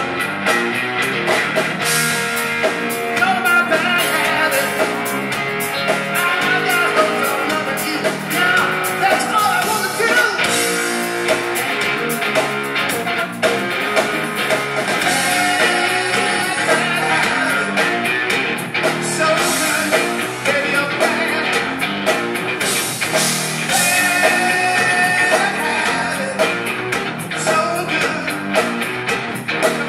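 Rock band playing live: electric guitar over drums, with a male singer's voice at times. The audience-recorded sound is thin in the deep bass.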